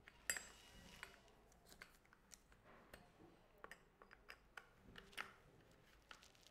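Faint, irregular small clicks and light scrapes of a flat screwdriver being worked in an adjusting screw on the side of a chainsaw, with one sharper click near the start.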